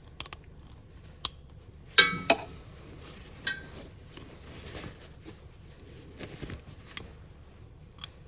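Metal clinking and tapping as battery cable ends and hand tools are handled: a few scattered sharp strikes, the loudest about two seconds in with a short metallic ring.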